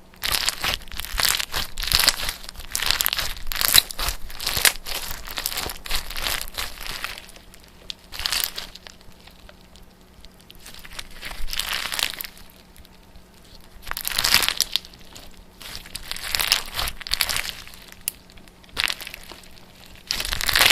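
Irregular crinkling and rustling, like something being crumpled or handled, coming in clusters of bursts with short quieter gaps.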